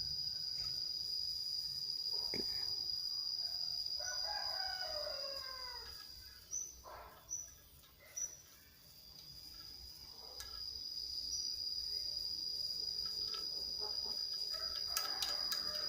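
A rooster crows once, about four seconds in, over a steady high trill of crickets. The cricket sound dips for a few seconds after the crow and then returns.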